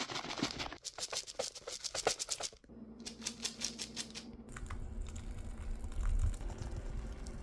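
A quick run of crackling clicks that stops about two and a half seconds in. Sparser clicks follow, and from about halfway a low rumble comes in.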